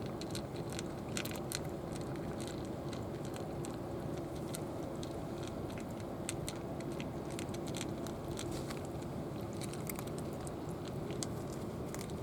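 A cat chewing dry food, a rapid irregular crunching of small clicks, over a steady background rush.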